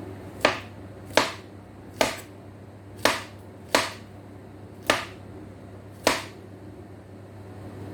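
Knife slicing a peeled banana into rounds: seven sharp taps, about one a second, as the blade goes through and strikes the surface below.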